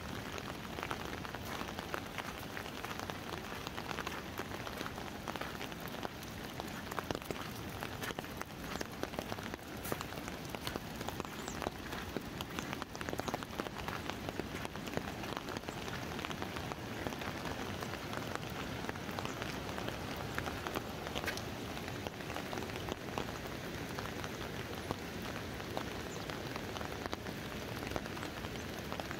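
Steady rain falling on an umbrella overhead: an even hiss with many separate drops ticking on the canopy.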